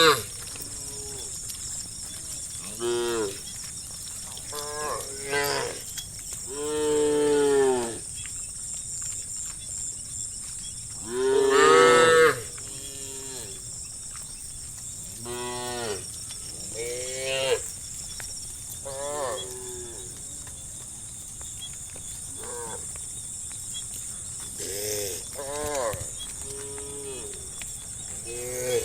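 A herd of cattle mooing: about a dozen separate moos from several animals, each about a second long and rising then falling in pitch, some loud and close, others fainter. A steady high-pitched buzz, like insects, runs underneath.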